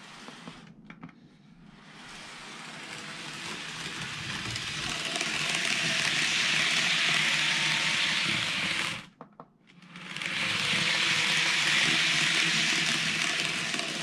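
TOMIX N-gauge JR 103-series model train running on the layout track, its wheels rolling on the rails and motor running as a steady hiss that grows louder as the train comes close and passes. The sound cuts out abruptly for about a second near the nine-second mark, then comes back loud and eases off toward the end.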